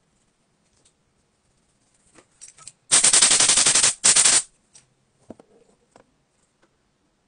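Bristle brush scrubbing a phone's speaker grille, a loud rapid scratching rattle that lasts about a second and a half with a short break near the end, with fainter brush scrapes before and after.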